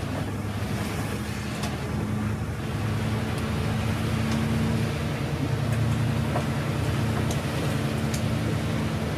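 Inside a moving bus: the engine's steady drone, with tyres hissing on the rain-soaked road.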